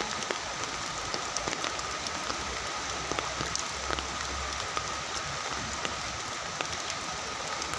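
Steady rain falling on foliage and floodwater, a continuous hiss dotted with many small drop ticks. A thin steady tone runs underneath.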